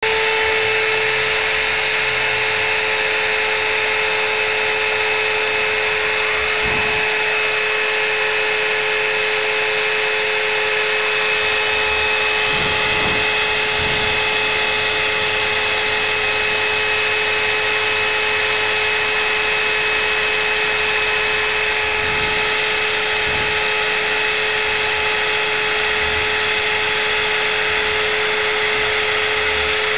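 Home-built CNC router milling MDF at a slow feed: the spindle runs steadily with a constant whine over a hiss of cutting noise, while fainter low motor tones shift in pitch now and then as the axes move.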